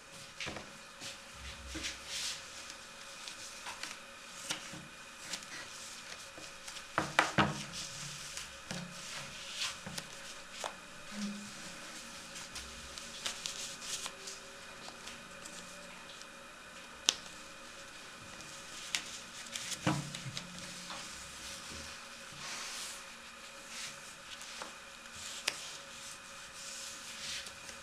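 Hands rubbing and handling a felted wool hat while a fabric band is wrapped around it, a rustling broken by scattered light knocks and clicks.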